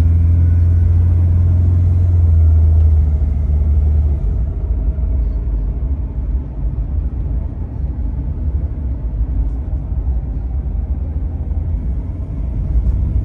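Ford Explorer's engine and road noise heard from inside the cabin while driving: a strong, deep drone for about the first four seconds, then a quieter steady low rumble.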